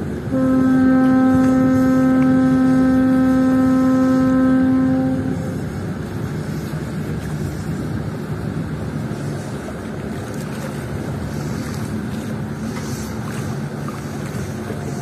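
A ship's horn sounds one long blast, a single steady note lasting about five seconds. After it cuts off, a steady low rumble of a ship's engines with water wash remains.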